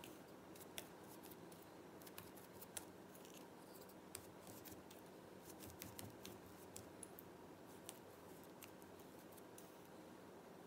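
Near silence: faint room tone with scattered light clicks and taps as a pastry brush is dipped in a small bowl of melted butter and spread over strips of raisin bread dough.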